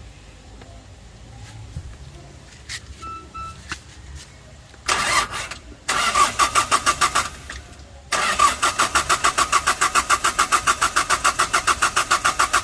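Hyundai Porter 2 diesel engine being cranked by its starter without catching. A short crank is followed by two longer cranks, each chugging evenly at about seven strokes a second, as the fuel system is bled of air after injector work.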